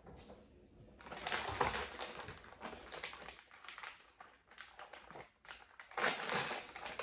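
Plastic shrimp bag crinkling and rustling as it is handled and pulled open. It comes in two spells, the louder one near the end.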